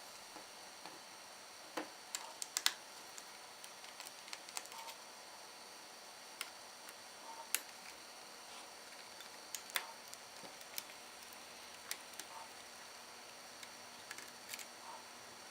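Scattered small clicks and taps at irregular intervals, a quick cluster of them about two seconds in, from hands and tools handling the parts of a laptop being taken apart.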